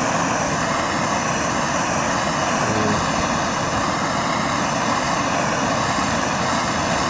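MAP gas torch flame burning with a steady hiss, heating the end of a 6061-T6 aluminum tube to anneal it.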